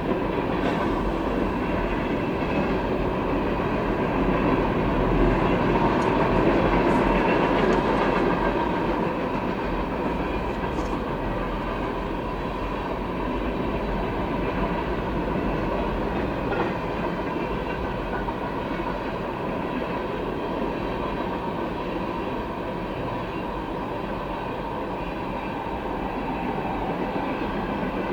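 Freight cars of a CSX train loaded with empty trash containers rolling steadily past, with a continuous rumble and the clickety-clack of wheels over the rail joints.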